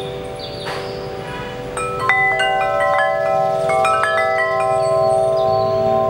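VENUS-44 six-tube aluminium-alloy wind chime (44 mm tubes) ringing, several long tones overlapping and sustaining. About two seconds in, the striker hits the tubes several times in quick succession, new tones join, and the chime rings louder.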